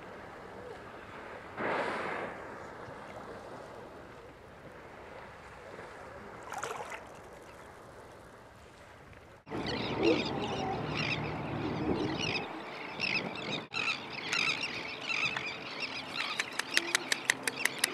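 Humpback whales blowing at the surface: a strong whoosh of breath about two seconds in and a fainter one around six seconds, over soft wind and water noise. After an abrupt change halfway through come sea otters at close range: short high squeaky calls and splashing, with a rapid run of clicks near the end.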